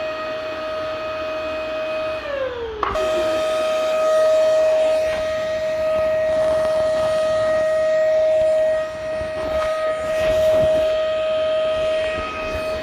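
Vacuum cleaner motor running with a steady high whine over a rushing of air. About two seconds in, the pitch slides down as if the motor is slowing, then cuts abruptly back to full speed and holds steady again.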